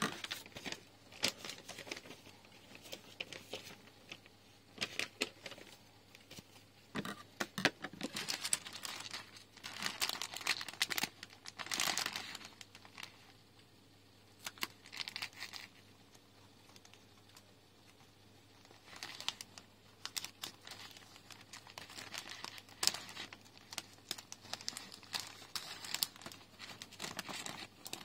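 Thin plastic LEGO polybag crinkling and rustling in bursts as it is handled and snipped open with scissors, with a quieter spell in the middle.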